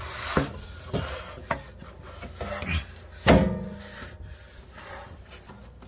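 Exhaust parts rubbing and knocking as a steel muffler is worked onto its rubber exhaust hanger, with several short knocks and one loud metallic clank with a brief ring a little past halfway.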